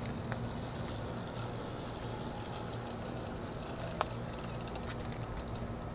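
Electric dirt bike with a 3000 W QS 138 mid-drive motor riding slowly past on a street: a steady low hum under light outdoor background noise, with a single sharp click about four seconds in.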